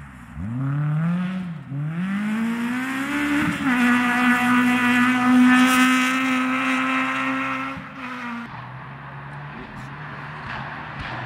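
Rally car engine under hard acceleration: the revs climb, dip at a gear change about two seconds in, then climb again and hold high and steady for about four seconds. Near the end the revs drop off suddenly as the driver lifts, leaving a lower, fainter engine note.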